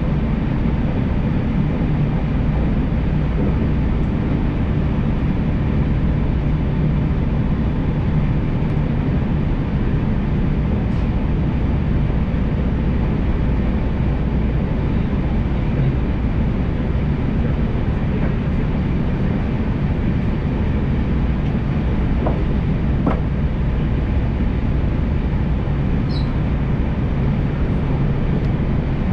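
Electric local train on the JR Tokaido Main Line running at steady speed, heard from on board: a continuous low rumble of wheels and running gear with a faint steady hum. Two faint ticks come about three-quarters of the way through.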